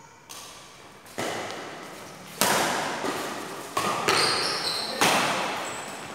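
Badminton racquets striking a shuttlecock in a fast doubles rally: about six sharp hits, roughly one a second, each ringing out in the hall's echo. High squeaks from shoes on the court come in between the hits near the middle.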